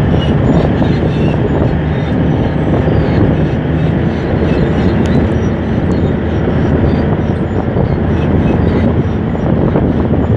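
Komatsu D155A bulldozer's diesel engine running steadily under load as it pushes sand with its blade, with a fast clatter over the top from the steel tracks.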